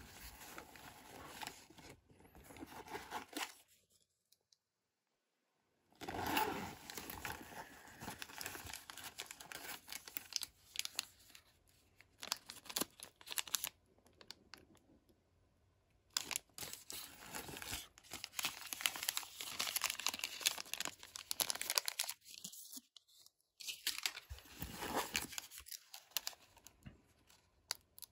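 Small plastic zip bags crinkling and rustling as they are handled, in irregular stop-start bursts along with handling of a fabric shoulder bag. The sound cuts out completely for about two seconds around four seconds in.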